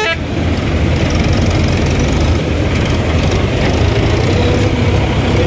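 Combine harvester's diesel engine running steadily with a low, even rumble while its auger unloads wheat into a tractor trolley.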